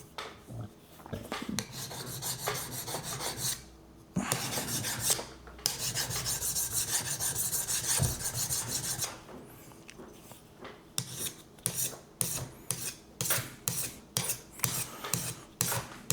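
Sharpening stone scraping along a steel knife edge on a TSProf Kadet guided sharpener. Irregular strokes at first, then a steady stretch of scraping in the middle, and after a short lull, quick regular back-and-forth strokes a little over two a second.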